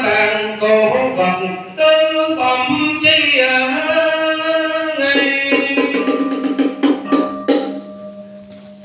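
Vietnamese ritual ceremony music: a sliding, wavering melodic line over drum and wood-block strikes. In the second half the strikes come several a second, and the music fades near the end.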